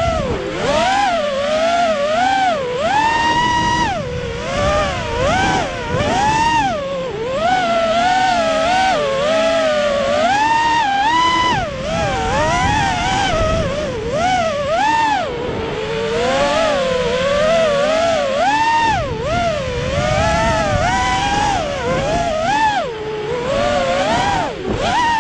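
Racing quadcopter's Emax 2205 2600KV brushless motors driving DAL 5045 three-blade props, heard from the camera on board: a loud, continuous whine that swoops up and down in pitch every second or so as the throttle changes, over a rush of wind noise.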